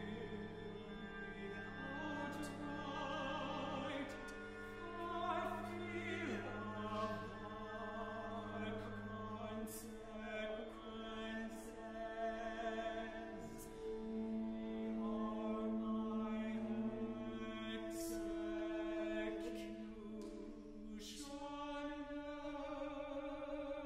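Contemporary chamber opera: a sung vocal line with vibrato over held chords from a small ensemble of saxophones, strings and keyboards, punctuated by several sharp percussion strikes.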